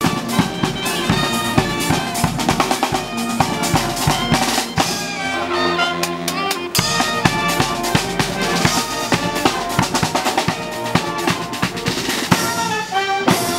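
Live street brass band playing: saxophones and trumpet over a driving beat on a marching bass drum with a cymbal mounted on top. About five seconds in the drumming thins out under a held horn chord for a moment, then the full beat comes back in.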